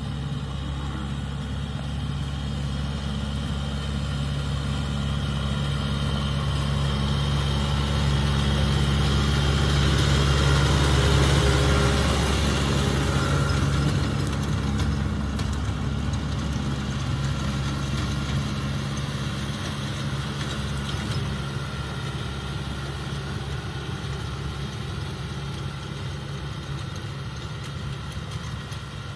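Farm tractor engine running steadily as it pulls a rotary tiller through the soil. It grows louder as the tractor comes close, loudest about halfway through, then fades as it moves away.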